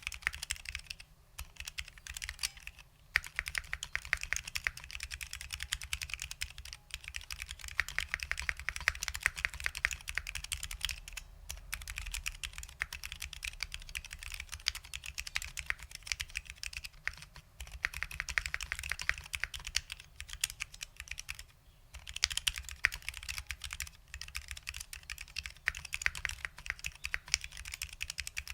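Fast continuous typing on a custom 60% mechanical keyboard with lubed SKCL Green Alps switches and OG ABS doubleshot keycaps: dense runs of clacky key presses broken by a few short pauses.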